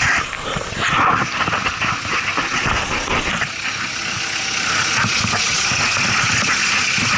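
Ford Ranger's WLT turbodiesel idling, under rustling and knocks from the camera being carried down and under the truck. The knocks die away after about four seconds, leaving a steadier hiss over the engine.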